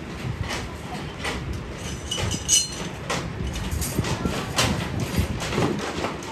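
Irregular metal taps and clanks, several a second, with one louder clank about two and a half seconds in that rings briefly.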